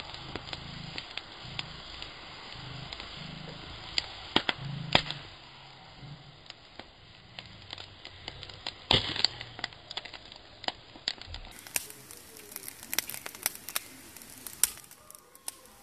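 Wood cooking fire crackling, with scattered sharp pops and snaps and a louder cluster of snaps about nine seconds in.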